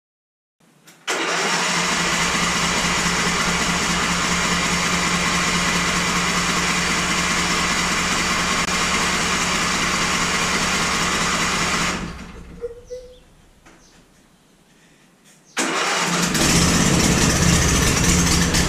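Riding lawn mower's engine running steadily. It stops about twelve seconds in and runs again about three seconds later, heavier in the low end.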